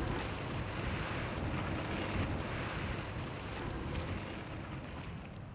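Steady rushing of wind and water, with no distinct events, easing a little near the end.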